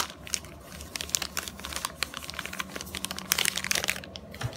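Clear plastic bag crinkling in the hands as the router's bagged antennas are handled, a run of irregular crackles.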